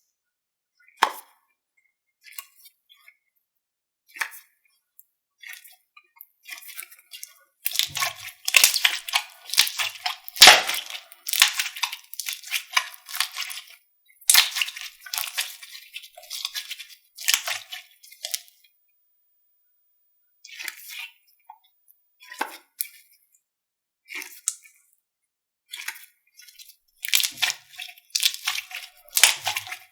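Slime being played with, giving clusters of crackling, clicking pops with short pauses between; the pops come thickest through the middle and again near the end.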